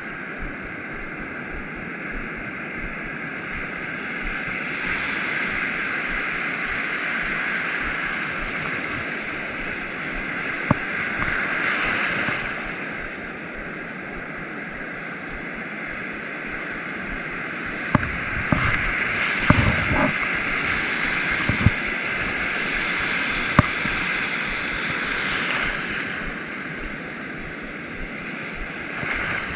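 Ocean surf breaking and foam washing around close by, rising twice as waves roll in. A few sharp knocks sound in the middle and second half.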